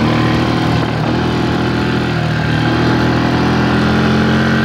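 ATV (quad bike) engine running steadily while riding along at an even speed, with a constant engine note throughout.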